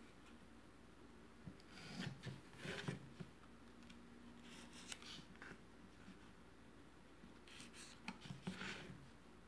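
Sharp craft knife cutting and scraping through the facing material glued under melodeon bass pallets, against a wooden board. The strokes are faint and come in short bursts: around two seconds in, once near five seconds, and again near the end.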